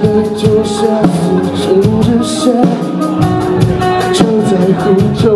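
Live rock band playing: drum kit with regular cymbal hits, electric guitars and bass.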